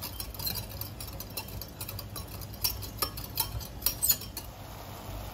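A utensil clinking and tapping against the side of a glass Pyrex measuring jug while stirring a thin liquid sauce: quick irregular clicks that stop about four and a half seconds in.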